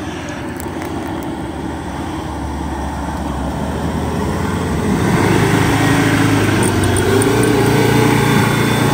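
Ford Endeavour SUV's diesel engine pulling under load as it works through a deep dip on an off-road trail. It grows steadily louder, and its pitch climbs and wavers from about halfway.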